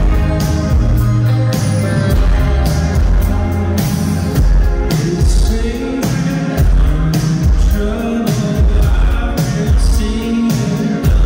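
Rock band playing live with a steady drum beat, bass and electric guitar, and a singer's voice over the top.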